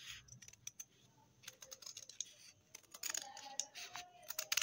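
Scissors cutting through stiff fusible buckram interfacing: a run of short, crisp snips and blade clicks that come faster and closer together over the last second and a half.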